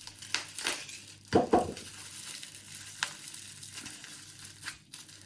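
Packaging being pulled open by hand, crackling and rustling with scattered clicks, and a louder knock about a second and a half in.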